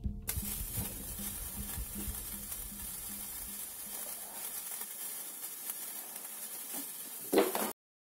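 Last sparklers fizzling out inside a steel washing-machine drum: a faint steady sizzling hiss with light crackles, over a low hum that fades out about halfway through. A short louder noise comes near the end, then the sound cuts off.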